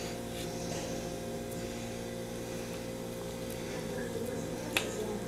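Steady electrical hum with faint, brief rustles of cheese being grated and crumbled by hand over a baking tray. A single sharp click sounds near the end.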